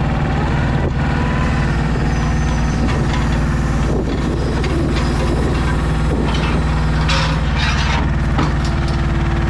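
DAF XF 480 truck's straight-six diesel running steadily, powering the hydraulics of its truck-mounted Kennis crane as the crane swings a grab of concrete paving blocks. Brief rattles come in the middle, and a short hiss about seven seconds in.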